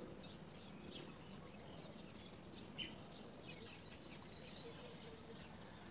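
Faint, scattered short bird chirps over a steady outdoor background hiss.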